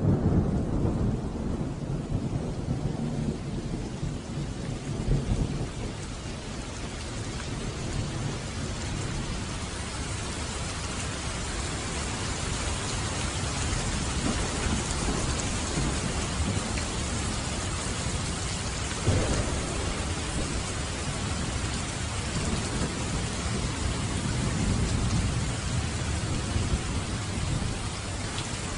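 Steady heavy rain in a thunderstorm, with low rolling thunder in the first few seconds and again near the end, and a sharp thunderclap about two-thirds of the way through.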